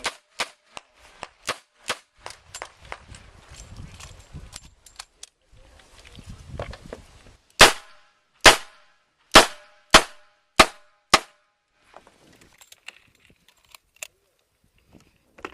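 Revolver fired in a quick string of six loud shots about half a second to a second apart, about halfway through. Fainter sharp cracks and clicks come before it.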